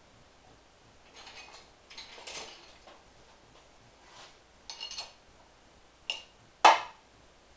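Metal tools clinking and rattling in half a dozen short bursts, some with a brief ring, the loudest near the end.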